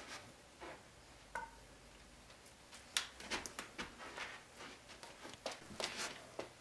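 Yellow toy nunchucks being swung and twirled: faint irregular clicks and short swishes, coming thick and fast from about three seconds in.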